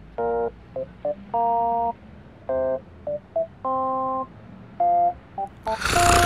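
A string of steady, beep-like electronic tones at changing pitches: about six held notes of roughly half a second each, with short blips between them, like a simple tune. A rushing noise comes in near the end.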